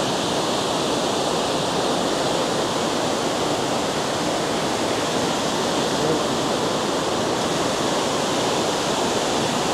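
Water pouring over a dam spillway: a steady, unbroken rush of falling water.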